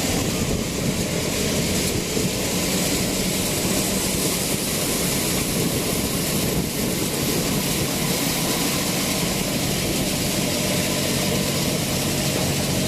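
Tractor-driven Shree Ganesh thresher running steadily while threshing chickpeas: a constant low engine drone under a dense, even noise from the machine.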